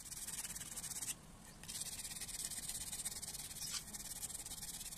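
Sandpaper rubbed by hand over carved wood, smoothing the hollow of a wooden conch: a steady scratchy rasping that pauses briefly a little after a second in.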